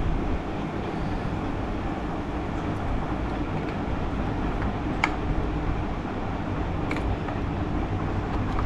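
Steady low machine hum, with a few small sharp clicks about five and seven seconds in as plastic headlight wiring-harness plugs are handled and pushed together.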